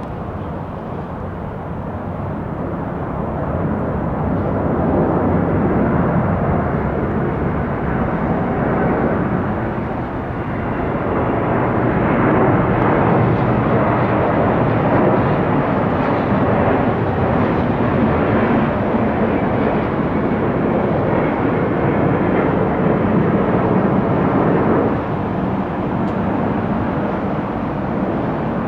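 Boeing 777-281 airliner's jet engines, a broad steady roar that builds over the first five seconds, then holds loud with a brief dip near ten seconds and a slight drop near the end.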